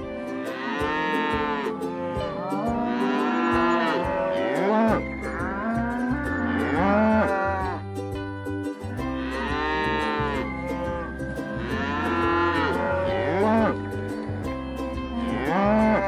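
Cows mooing repeatedly: about six long moos, each rising and then falling in pitch.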